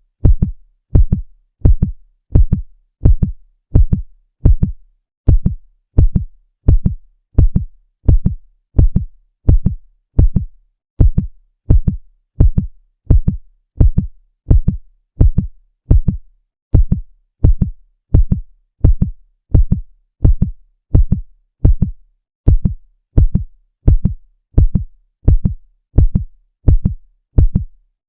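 Heartbeat sound effect: steady, evenly spaced lub-dub double thumps, deep and loud.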